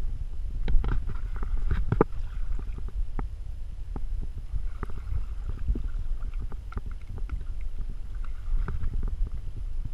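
Wind rumbling on the microphone, with water sloshing and small splashes around legs wading in shallow water beside a boat's hull.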